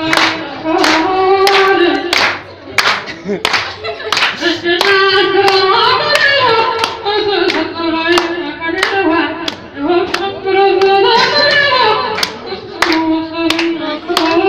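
A voice singing a melody, accompanied by steady rhythmic handclapping at about two claps a second.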